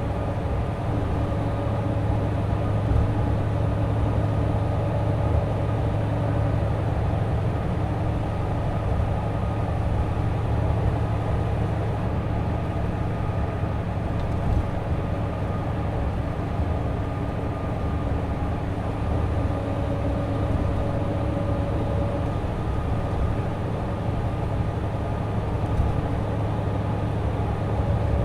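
Mitsubishi Fuso Aero Ace highway coach cruising at steady speed: its turbo-diesel engine drones evenly under road and tyre noise. Faint steady whining tones come and go on top.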